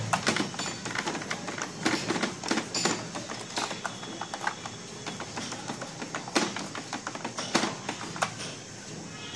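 Hand wiping a dry cloth over the plastic rollers and parts inside an opened Epson L565 automatic document feeder: irregular light clicks, knocks and scuffs of plastic, thinning out near the end. It is cleaning out the dust that keeps the feeder from picking up paper.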